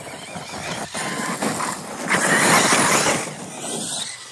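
Brushless 6S Arrma RC basher (2250 KV motor) driven fast over loose dirt and wood mulch: motor and drivetrain noise mixed with tyre and debris noise, much louder for about a second from around two seconds in.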